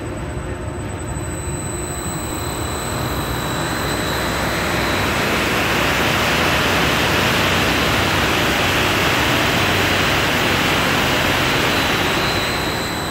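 Hoist drive of a HUSS Sky Tower ride running fast during an overspeed test: electric motor, gearbox and steel wire ropes running over the traction sheave. A loud rushing machine noise builds over the first few seconds, holds, and eases off near the end, with a thin, steady high whine over it.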